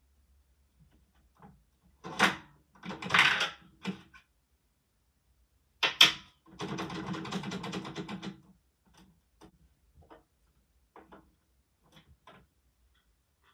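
Plastic Lego bricks and parts clicking and clattering as they are handled by hand: two loud rattles a couple of seconds in, a sharp snap about six seconds in followed by about two seconds of continuous rattling, then scattered light clicks.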